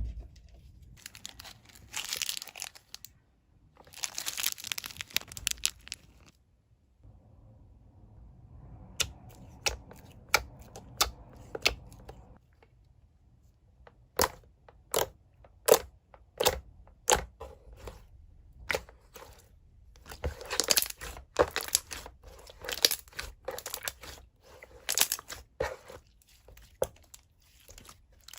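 Posslime makeup-box slime being handled: a crinkly, tearing rustle in the first few seconds, then a long run of sharp pops and crackles as the slime is pressed and squeezed, some coming singly and some in dense clusters.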